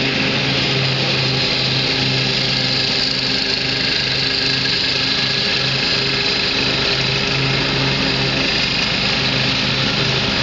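Jacobsen 14 LT garden tractor's engine running steadily while the tractor drives, a loud low hum that wavers slightly in strength.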